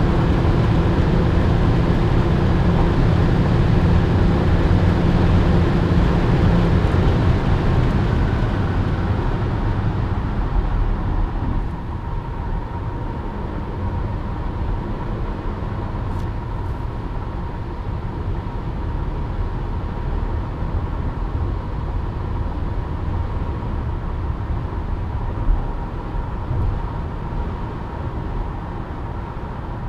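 Inside the cabin of an Opel Astra J Sports Tourer with the 1.4 turbo petrol engine, heard at close to 200 km/h: a steady engine drone over heavy wind and road noise. After about seven seconds the engine drone fades and the noise falls away as the car slows to about 120 km/h, leaving a steadier tyre and wind hum. One brief knock comes near the end.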